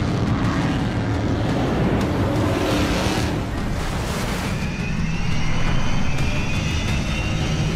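Engines of a fast armed patrol boat running at speed, with the rush of spray, mixed with background music. A faint rising whine comes in about halfway through.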